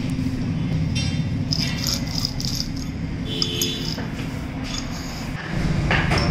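Rusty cylindrical roller bearing turned by hand, its rollers rattling and clinking in short bursts, over a steady low hum.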